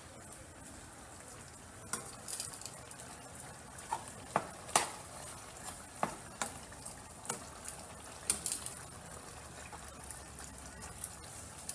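Ground meat sizzling as it browns in a skillet, a steady hiss. From about two seconds in, a cooking utensil scrapes and taps against the pan in irregular strokes as the meat is stirred and broken up.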